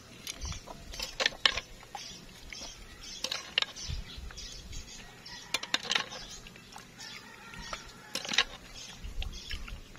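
Metal ladle clinking against clam shells and the pot while scooping clams and coconut-milk broth into a plastic tub: scattered clicks and clacks of shell on metal and plastic.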